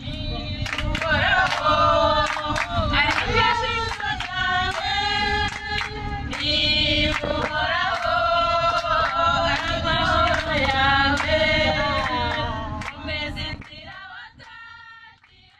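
A group of women singing together with hand claps, over the steady low rumble of a moving minibus. The singing fades out near the end.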